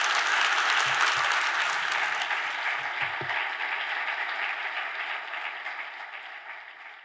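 Large audience applauding, fading out gradually toward the end.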